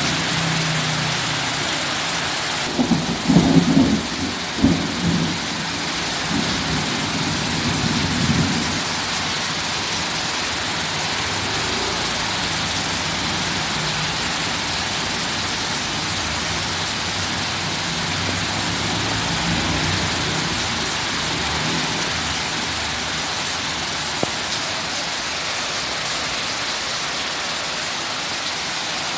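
Heavy rain pouring steadily in a storm. There are bursts of low rumbling about three to five seconds in and again near eight seconds.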